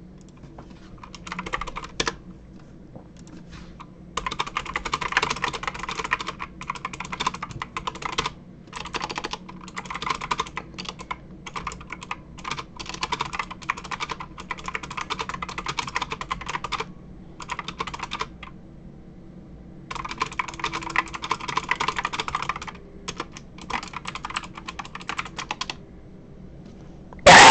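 Typing on a mechanical keyboard with Cherry MX Blue switches, the keys clicking in fast runs of a few seconds with short pauses between, heard through a webcam microphone.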